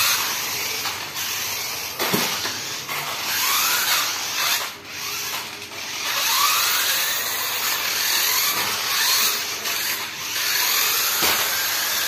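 Electric motors of toy remote-control 4x4 monster trucks whirring and revving in short spurts on a hard tiled floor, with a few sharp knocks.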